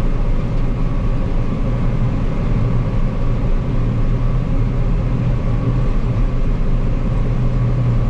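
John Deere 9560 STS combine running under load while harvesting barley, heard from inside the cab: a steady drone with a strong low hum.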